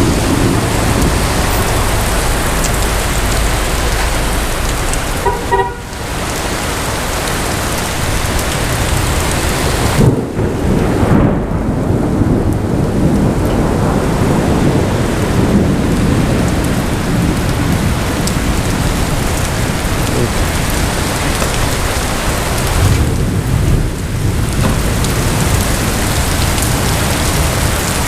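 Heavy rain pouring down in a thunderstorm, with thunder rumbling throughout. About ten seconds in a sharp, loud thunderclap cracks and rolls into a longer rumble, and another rumble swells near the end.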